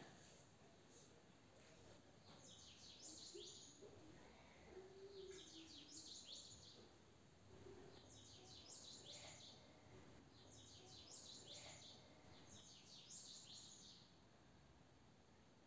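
Faint bird song: a short, high, rapid chirping phrase repeated five times, about every two and a half seconds, over quiet room tone.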